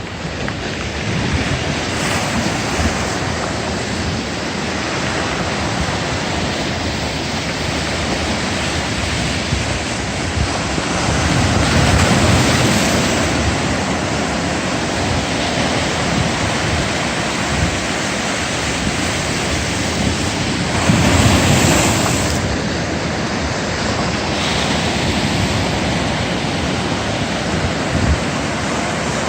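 Ocean surf: a steady wash of waves, swelling louder twice as larger waves break, about a third of the way in and again about two-thirds in.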